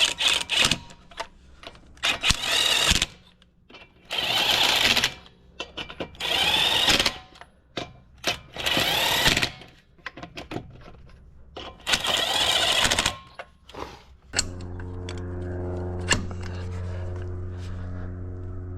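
Impact wrench running in five short bursts of about a second each, snugging up wheel lug nuts. About fourteen seconds in, a steady motor hum starts and keeps running.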